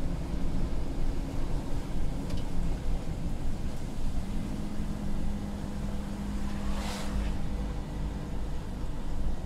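Scania P250 lorry's five-cylinder diesel engine running on the move, heard from inside the cab over a low rumble of tyres on a wet road. About halfway through, the engine hum settles to a lower, steadier note, and a brief hiss rises and fades soon after.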